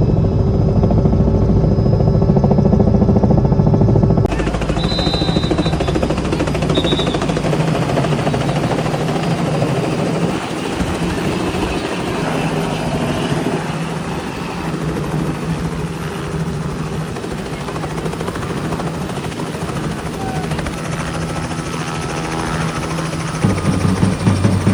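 Helicopter running: steady rotor and turbine noise with a low hum, changing abruptly about four seconds in and again near the end.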